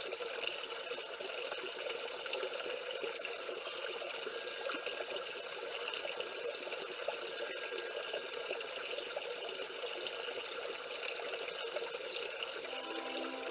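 Water from a small waterfall pouring and splashing steadily over river stones. Near the end, a few soft, steady music tones come in underneath.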